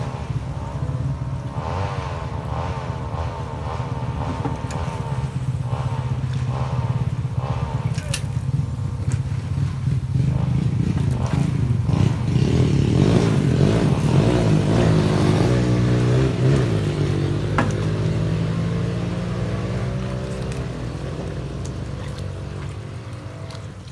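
A motor vehicle engine running, growing louder to a peak past the middle and then fading away.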